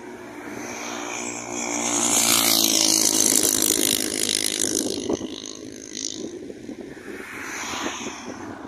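A motor vehicle passing close by on a highway: its engine note swells over the first few seconds and fades away, and another vehicle comes up near the end.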